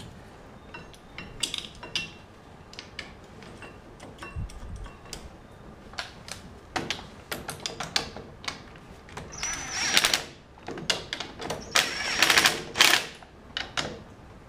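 Light clicks and taps of metal parts being handled, then a cordless power driver running in several short bursts, driving the bolts of a Wilwood brake caliper into its shimmed mount.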